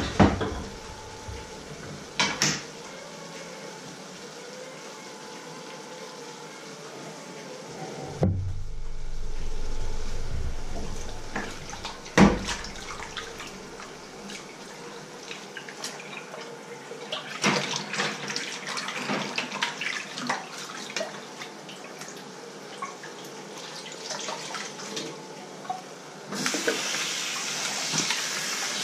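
Washing dishes by hand in a stainless steel kitchen sink: plates and cutlery clink and knock, with one heavier knock about twelve seconds in. Near the end the tap runs steadily.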